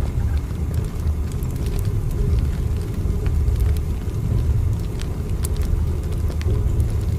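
Steady low rumble of a moving train, with scattered light clicks and ticks over it.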